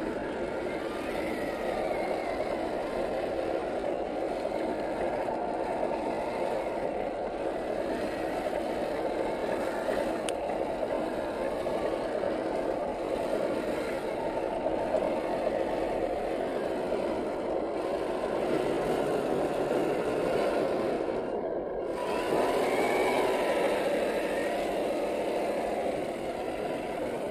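A 1/10-scale RC crawler's 540-size brushed electric motor and gear train whining as it drives through wet mud, the pitch rising and falling with the throttle. Its tyres churn the mud.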